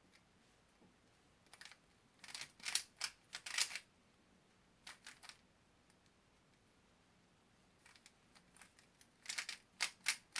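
A 3x3 speedcube being turned quickly during a solve: flurries of rapid plastic clicks and clacks, with a pause of a couple of seconds in the middle before another quick run of turns near the end.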